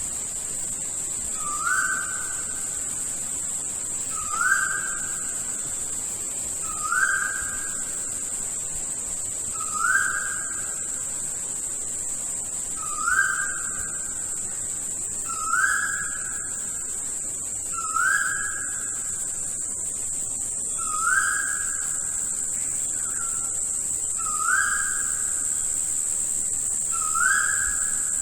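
A rainforest bird giving a short upslurred whistle about ten times, one every two to three seconds, over a steady high-pitched drone of insects.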